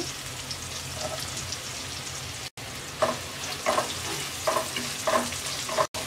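Chopped onions sizzling in hot oil in a karahi. From about halfway through, a wooden spatula stirs and scrapes the pan in regular strokes. The sound cuts out for an instant twice.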